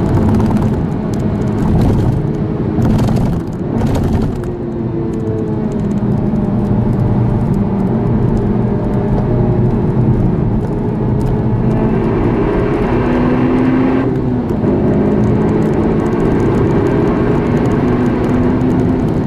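Honda Civic Type R's four-cylinder engine heard from inside the cabin under hard driving, its note climbing and dropping several times as the car is worked through the gears, over steady road and tyre rumble.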